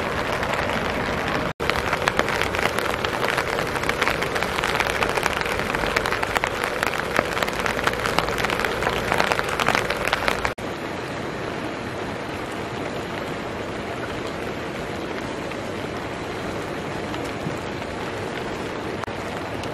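Rain falling in a dense pattering of drops. About halfway through it drops to a softer, steadier rain hiss.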